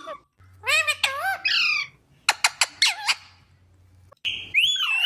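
Pet green parakeet, an Indian ringneck, calling and squawking at close range: a series of chattering calls, a quick run of sharp clicks near the middle, and a loud harsh squawk near the end.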